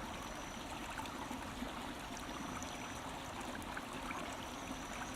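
A stream flowing steadily, with a faint high tone that comes and goes.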